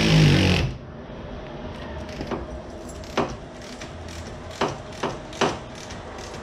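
A cordless drill-driver with a Torx bit runs, cinching strut tower brace bolts tight, and cuts off under a second in. Then come several separate sharp clicks and knocks of tools and hardware being handled.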